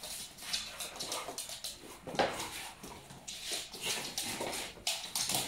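An excited dog snuffling and scuffling around someone's feet, in irregular short noisy bursts, with no barking.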